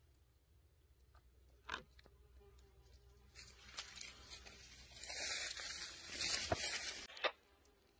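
Rustling and crunching in dry leaf litter that builds from about three seconds in and cuts off abruptly near the end, with a few sharp clicks.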